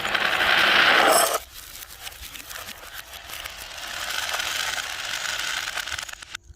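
Marbles rolling and clattering down a wooden Haba marble-run track: a loud rush for the first second or so, then a long run of quick small clicks and rattles that cuts off suddenly near the end.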